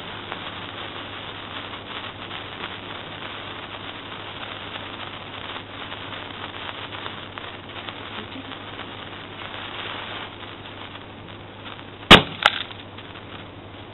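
A firecracker fuse fizzing and crackling steadily, then a sharp bang near the end, followed half a second later by a second, smaller crack.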